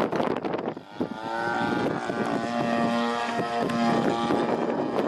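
CAP 232 aerobatic plane's engine and propeller droning overhead. The pitched drone comes in about a second in, drops slightly in pitch as it passes, then holds steady and fades back into wind buffeting on the microphone near the end.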